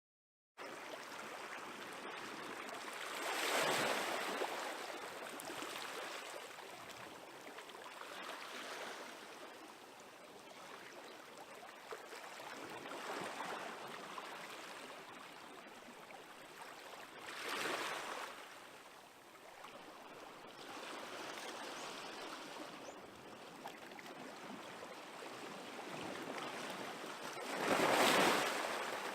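Small waves on a calm sea washing onto the shore in a steady hiss. Three louder breaks stand out: a few seconds in, around the middle, and near the end.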